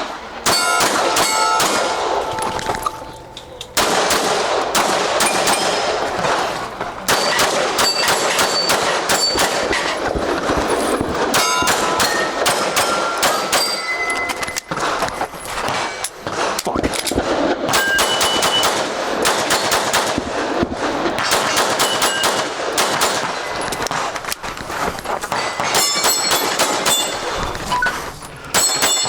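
Pistol shots fired in fast strings through a timed stage, with steel targets ringing as they are hit. There is a short break in the firing about three seconds in.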